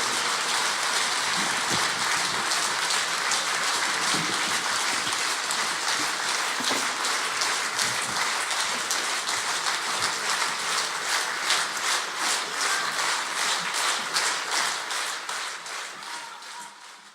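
Audience applause: dense clapping that falls into a beat of clapping in time about halfway through, then fades out near the end.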